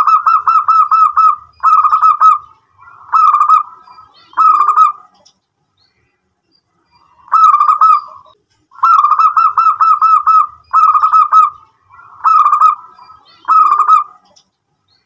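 Zebra dove (local perkutut) cooing in its rapid, staccato song. The song comes in short phrases of quick coo notes, each phrase about half a second to a second and a half long. There are four phrases, a pause of about two seconds midway, then five more.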